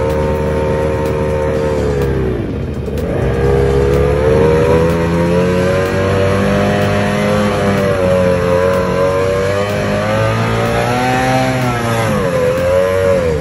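F1 powerboat's racing outboard engine running while the boat is held on a line during an engine test. The revs sag sharply about two seconds in, climb back up and waver, then dip again near the end.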